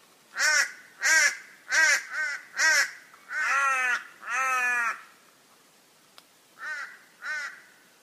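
Torresian crow (Corvus orru) calling: a run of five short caws, then two longer drawn-out caws, then two fainter short caws near the end.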